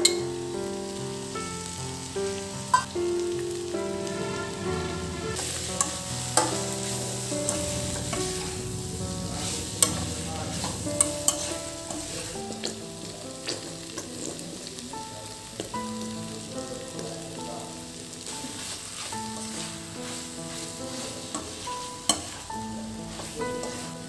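Mixed vegetables (potato, cauliflower, peas) sizzling in oil in a non-stick kadai as they are stirred with a slotted metal spatula, which clacks against the pan now and then. The sizzle grows louder about five seconds in. A soft melody plays behind it.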